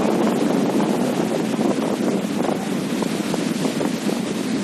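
Steady rush of wind buffeting the microphone, mixed with the wash of sea surf breaking.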